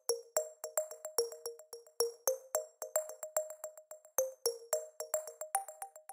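Background music: a light synthesizer tune of short, quickly fading notes at a few repeated pitches, played in a quick, even rhythm.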